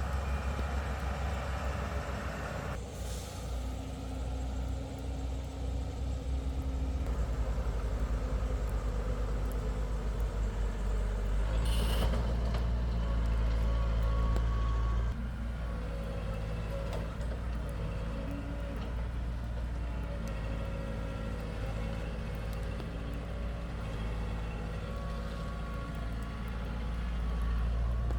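Heavy diesel engine of an excavator or dump truck running steadily, louder for a few seconds from about twelve seconds in. Two short hisses of released air cut through, about three and twelve seconds in.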